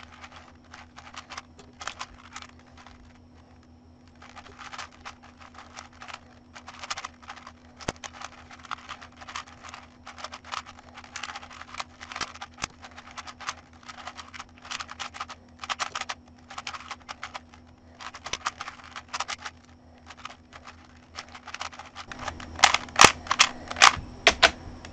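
Rubik's Cube being turned fast in a speed-solve: dense runs of small plastic clicks with short pauses between them, and a cluster of louder, sharper clicks near the end.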